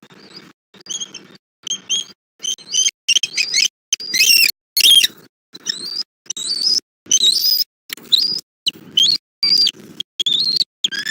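Bald eagle calling: a long run of high chittering squeals, each call bending in pitch, growing louder about three seconds in.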